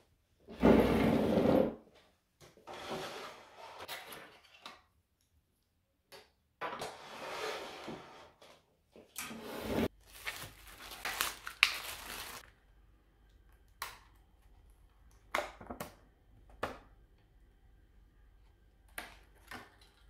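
Plastic food packaging rustling and crinkling in several bursts as a bag and a plastic olive tub are handled and opened, the loudest burst about a second in. This is followed by a few short light clicks and taps of plastic and cutlery on the table.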